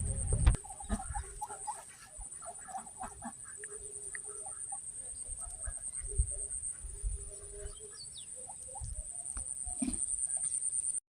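Birds calling with many short, repeated calls, some held a little longer, over a steady high-pitched tone. A loud low rumble cuts off about half a second in.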